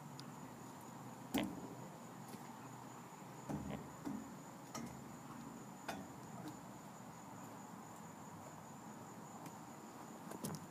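Faint, steady high-pitched trilling of crickets, with a few soft knocks and thumps of a child climbing across metal playground monkey bars, the loudest about a second and a half in.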